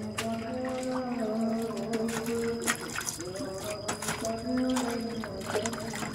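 Water splashing and dripping as leafy greens are rinsed by hand in a steel bowl and lifted out into a plastic bucket, in short irregular splashes. A slow melody of long held notes sounds alongside.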